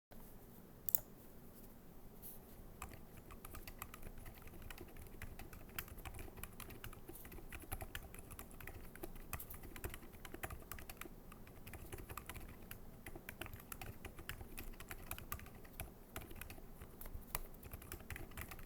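Typing sound test on a Planck 40% ortholinear mechanical keyboard fitted with lubed and filmed Silent Alpaca linear switches: a quiet, fast, steady patter of muted keystrokes. One sharper click stands out about a second in.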